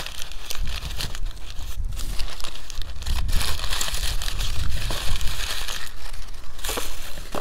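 Crumpled brown kraft packing paper crinkling and rustling as it is pulled out of a cardboard mailing box, busiest in a long stretch around the middle.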